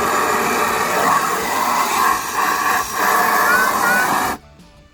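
Water running into a tub as it is filled with fresh water: a steady rush that stops abruptly near the end, when the flow is cut off.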